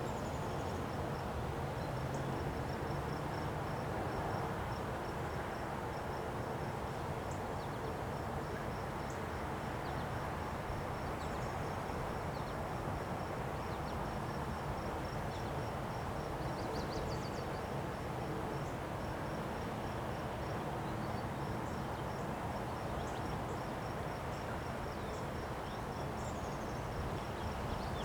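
Windstorm wind blowing in a steady, unbroken rush. Over it an insect chirps in an even, high-pitched pulse, and a bird gives a few short chirps.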